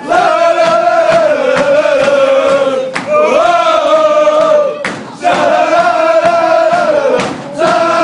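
Crowd of football supporters chanting together in unison, singing long held notes in phrases of two to three seconds with brief gaps between them.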